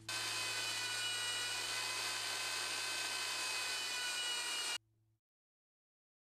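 Belt sander running with a small wooden piece pressed against its moving belt: a steady motor whine over the hiss of sanding. The sound cuts off suddenly after about five seconds.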